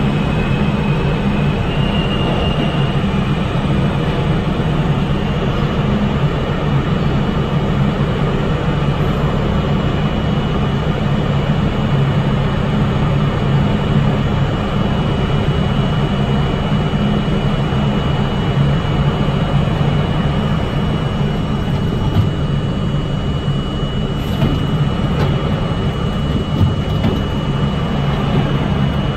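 R42 subway car standing in a station with its onboard equipment running: a steady, loud low hum and whir with a thin high whine held above it.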